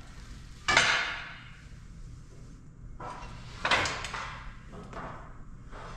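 A few sharp knocks, each with a short fading tail: one loud one about a second in, then two more around three to four seconds in, over a low steady hum.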